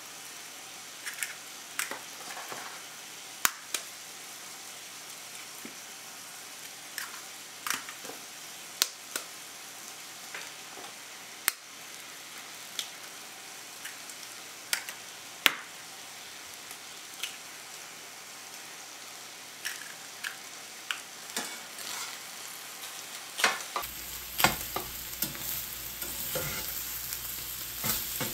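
Eggs being cracked open one after another, sharp taps at irregular intervals. Near the end, ground beef sizzling in a cast-iron skillet, stirred and scraped with a metal spatula.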